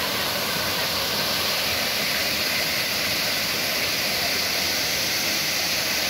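Small waterfall spilling over rock ledges into a shallow pool: a steady, even rush of falling water.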